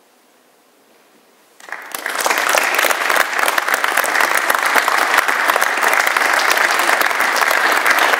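Faint room noise for about a second and a half, then an audience suddenly breaks into applause that continues steadily.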